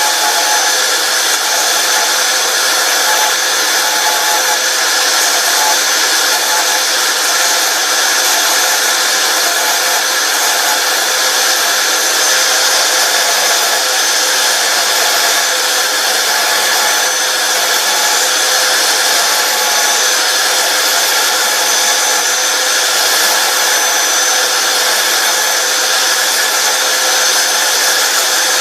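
Belt sander running steadily as it lightly sands the back of a plastic helmet's mouth teeth, thinning them until they are almost see-through so they can be poked out.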